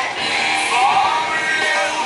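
Dance-pop music with a sung vocal line, played loud over a sound system.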